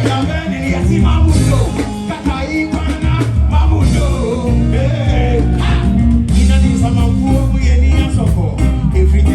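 Reggae music with a sung vocal over a heavy, pulsing bass line.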